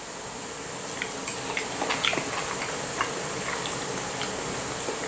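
Frying pan sizzling: a steady hiss with scattered small crackles and pops.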